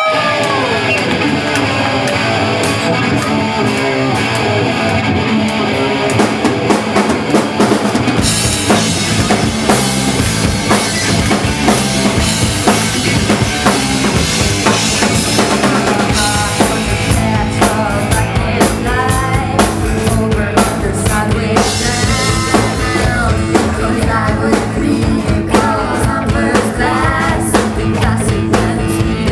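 Live rock band playing an instrumental passage on drum kit, bass and guitars; the full drums and bass come in about eight seconds in.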